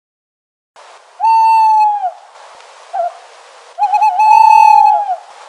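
An animal calling: two long, level, pitched calls, the second starting with a waver, with a short call between them, over a steady hiss.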